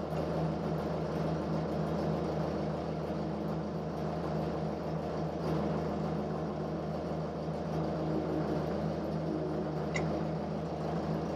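A machine running with a steady hum that holds level throughout, and a single short click about ten seconds in.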